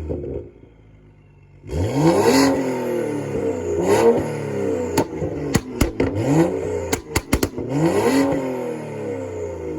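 Straight-piped BMW M235i's turbocharged inline-six exhaust, with no muffler or resonator, revved up and back down four times after a short lull. A burst of sharp pops and bangs on the overrun comes between the third and fourth revs.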